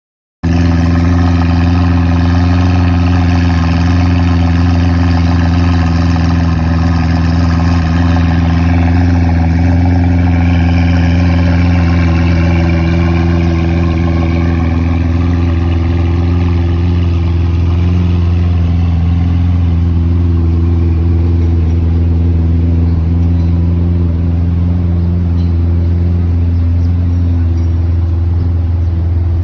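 Lamborghini engine exhaust running loud and steady at one unchanging pitch, with no revving. It cuts in abruptly just under half a second in.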